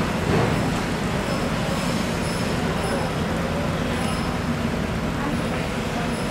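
Steady, loud rumbling background din of a working fish market hall, like engines or machinery running, with faint high chirps now and then.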